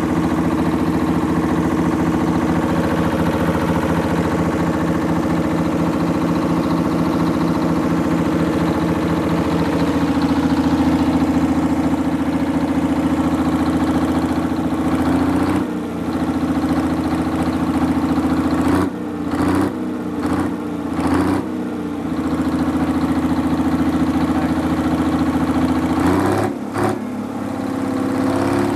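Detroit Diesel 6-71 two-stroke inline-six diesel running steadily while driving a 60 kW generator. A few brief drops in level come in the second half, and the tone shifts near the end.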